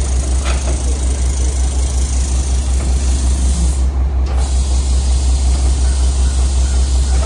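Mack MR rear-loader garbage truck's diesel engine running at raised, steady revs to drive the packer hydraulics: a loud, low, pulsing drone with a hiss over it while a dumpster is lifted into the hopper.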